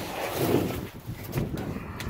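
Wind buffeting the microphone: a rough rumbling hiss that is strongest in the first second and eases after.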